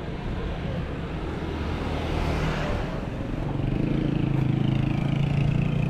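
Passing street traffic: a vehicle goes by with a swell of noise about two and a half seconds in, then a car engine's steady hum grows louder from about four seconds in as a vehicle draws close.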